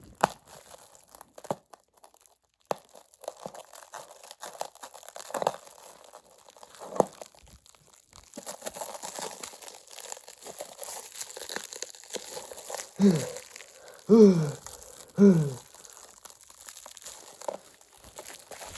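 Thick plastic stretch wrap being crinkled, pulled and torn off a ceiling-fan canopy in scattered crackling bursts. Near the end come three short, loud groans that fall in pitch.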